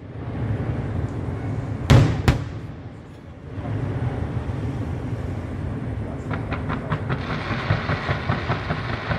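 Fireworks: two sharp aerial bursts about two seconds in, a fraction of a second apart, then a rumbling lull. From about six seconds a fan-shaped volley of red stars fires up from the ground as a rapid, even run of launch pops.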